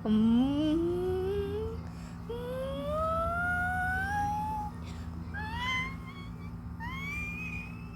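A voice-like wail sliding upward in pitch. Two long rising glides come in the first half, then two shorter, higher rising glides near the end, over a steady low hum.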